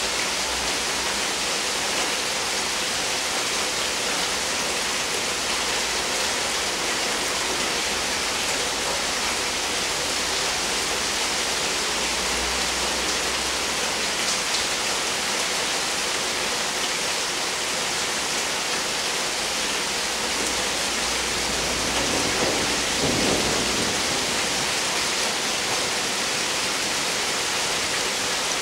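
Steady heavy rain falling during a thunderstorm, with low rumbles of thunder under it and a louder rumble about 22 seconds in.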